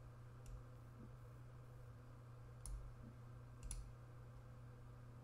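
A few faint computer mouse clicks, about three, spread out over a steady low hum.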